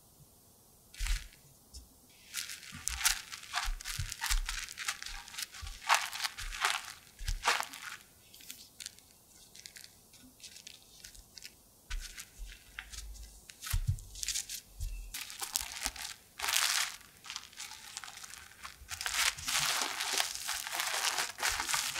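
Plastic cling film crinkling and rustling in irregular bursts as tart dough is handled on it, gathered into a ball and wrapped, with a dense stretch of crinkling near the end.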